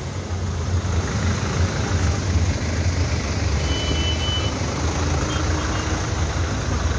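Steady low rumble of vehicle engines idling in stationary traffic on a flooded road, with one short high beep about four seconds in.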